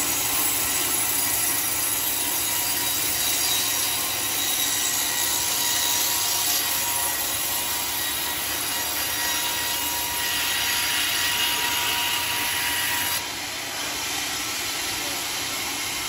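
Homemade band sawmill cutting through a large teak timber: steady sawing of the band blade in the wood, with a faint whine from the machine. It gets slightly quieter and duller about three-quarters of the way through.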